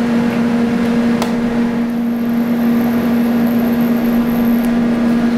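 TIG welding at 30 amps on thin sheet steel: a steady hum runs throughout. A click about a second in is followed by a faint high whine while the arc burns, which stops shortly before the end.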